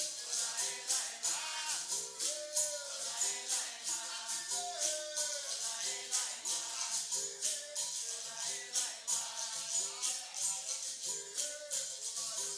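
Capoeira roda music: a voice singing over a steady, fast percussion rhythm of berimbau, caxixi shaker and pandeiro jingles.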